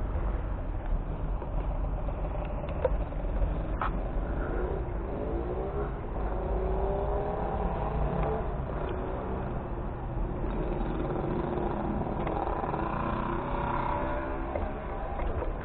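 A motor vehicle's engine running close by, its pitch sliding up and down as it moves, over a constant low rumble. A sharp click about four seconds in.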